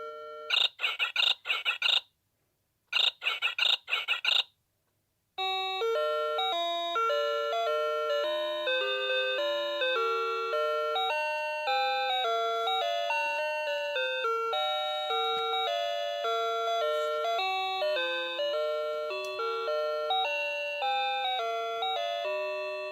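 Noah Precision Fruity Melody alarm clock sounding its alarm. A tune ends, then come two bursts of quick high electronic beeps, each followed by a short silence. After that a simple electronic melody of clear chime-like notes plays on.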